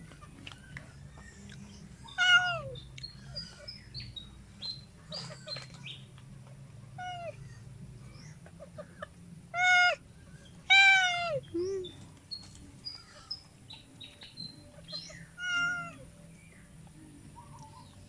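Domestic cat meowing about five times, each call falling in pitch, with faint high bird chirps between the calls.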